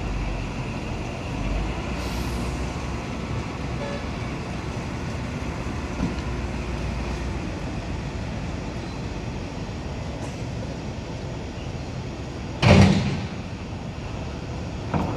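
Steady low rumble of truck and van engines as vehicles are driven off a ro-ro ship's stern ramp, with one loud thump near the end and a smaller knock just after it.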